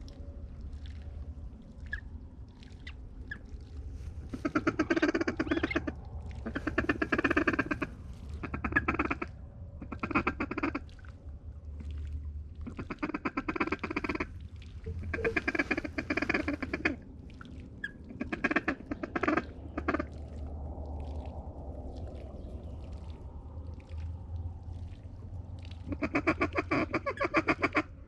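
Duck quacking in about eight or nine bursts, each a second or two of rapid quacks, over a steady low rumble.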